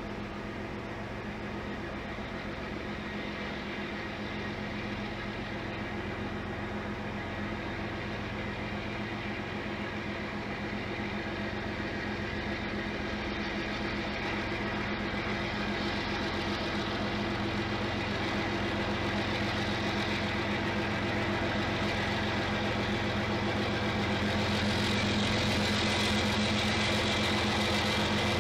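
Union Pacific diesel locomotives running as they lead a train in, a steady engine drone that grows gradually louder as they draw closer.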